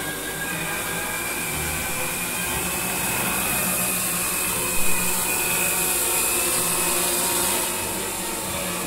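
Heavy-lift hexacopter's six electric motors and propellers running hard, a steady whine of several tones over a rushing propeller wash, as it climbs carrying a payload of about 5 kg. A short loud bump about five seconds in.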